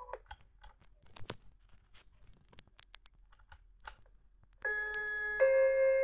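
Tokaido Shinkansen chime alarm clock playing its electronic chime: a melody ends just after the start, a few faint clicks follow, then about three-quarters of the way through the chime melody starts again, moving to a new note about every three-quarters of a second.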